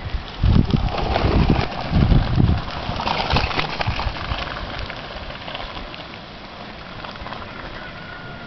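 Wind buffeting the microphone, then a bicycle rattling past over wet cobblestones, with a crackle of small ticks that is loudest about three to four seconds in and then fades to a steady hiss.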